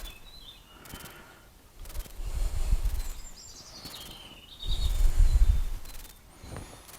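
Birds chirping in the background, with two low rumbling gusts of noise on the microphone, each about a second and a half long.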